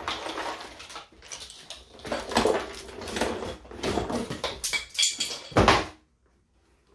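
A cardboard box and its packaging being handled, tipped and shaken: continuous rustling and scraping with sharp knocks, stopping suddenly near the end.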